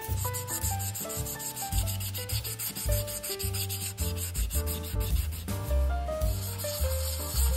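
Instrumental background music: a bass line and short melodic notes over a fast, even, scratchy pulse like a hi-hat or shaker, which drops out briefly about six seconds in.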